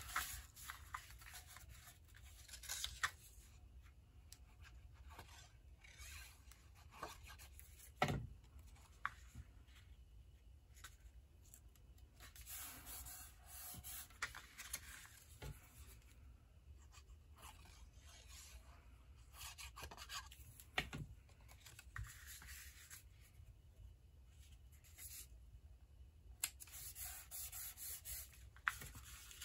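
Quiet handling of cardstock and patterned paper: strips being slid, rubbed and laid into place on a card panel, with a few scattered light taps.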